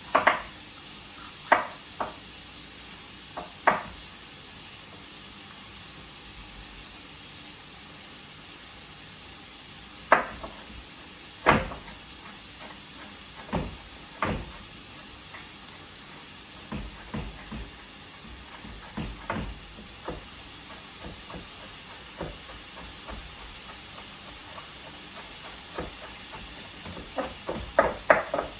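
Chopped onions, celery and bell peppers sizzling in a pan of vegan butter and olive oil, a steady hiss, with scattered knocks and clicks of a utensil against the pan, coming thick and fast near the end.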